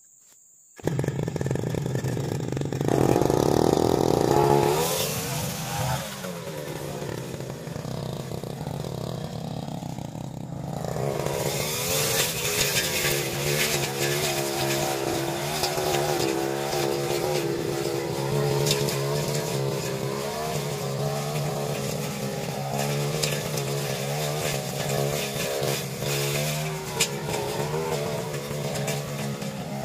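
Backpack brush cutter's engine running at working speed, its pitch rising and falling as the spinning blade cuts through grass and weeds. It comes in suddenly about a second in.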